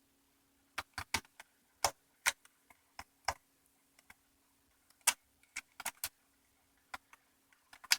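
Irregular sharp clicks and taps, about fifteen, from a screwdriver and the Roomba's plastic chassis being handled as screws are driven back in, over a faint steady hum.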